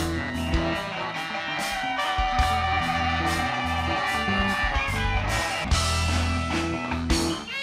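Live rock band playing an instrumental passage: electric guitar over upright double bass and keyboards, with a steady beat of cymbal strokes about two and a half times a second.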